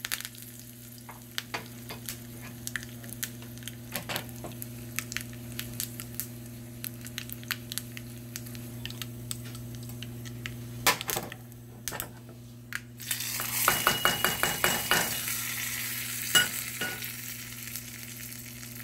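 A tadka crackling and popping in hot oil in a small steel tempering pan: mustard seeds, urad dal, dried red chillies and curry leaves, over a steady low hum. About two-thirds of the way through there is a louder burst of dense sizzling, as the hot tempering is poured onto the chutney, with a few metal clinks.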